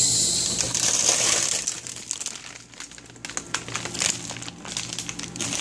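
Plastic bag of frozen chicken nuggets crinkling as it is handled, loudest in the first two seconds, then lighter rustles and clicks.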